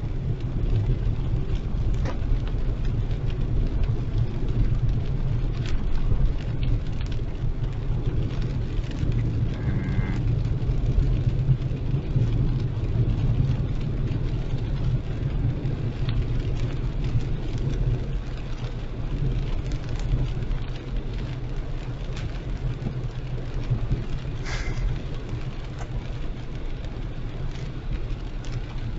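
Heavy rain and a car driving through it: a steady low rumble of engine and tyres on a wet road under the hiss of rain, with scattered drops ticking.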